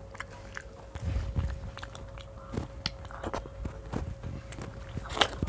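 Mouth sounds of a child eating rice and dal by hand: chewing, lip smacks and small wet clicks, with fingers working the rice on the plate. The sharpest click comes near the end, and a faint steady hum runs underneath.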